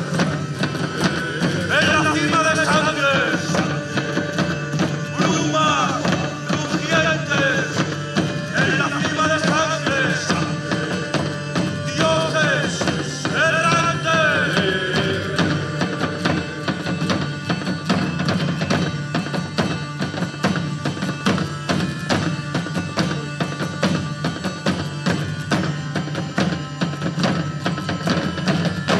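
Live folk band playing an instrumental passage: a wavering lead melody over dense, fast percussion and a steady low drone. The music stops at the very end.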